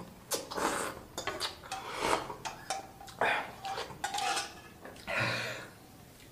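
Close-up mouth sounds of eating curry noodles: slurping noodles off a fork, then wet chewing and smacking in a string of short bursts, with a fork clinking on the pan.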